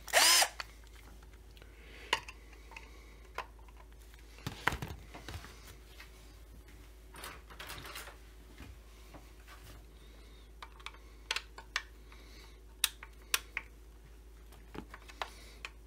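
Hand tools being picked up, set down and handled on a workbench: scattered light clicks, taps and clatters, with a louder knock about four and a half seconds in.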